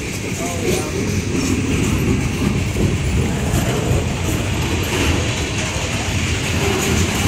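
CSX freight train cars rolling past at close range: a steady rumble of steel wheels on the rails.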